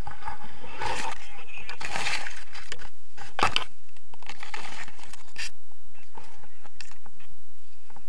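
Rustling and scraping handling noise on the camera's microphone as it rubs against harness gear, with irregular knocks, the sharpest about three and a half seconds in.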